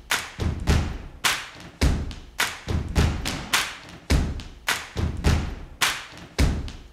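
Background music that is only a drum beat so far: evenly spaced thudding hits, a little under two a second, with no melody.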